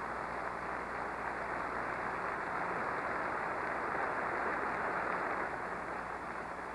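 Large audience of delegates applauding, building to its loudest about four to five seconds in and then easing off.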